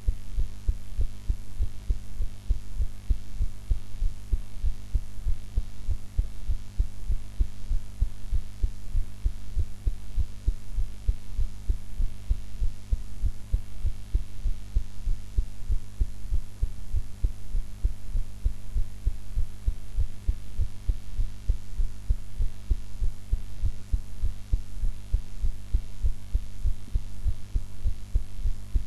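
A woman's own heartbeat recorded close up after eating: a steady run of regular low beats, with a steady low hum beneath.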